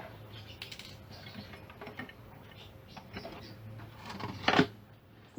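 Small mechanical clicks, taps and rattles from hand work on a speaker unit, with one louder knock-and-rattle about four and a half seconds in, over a faint steady hum.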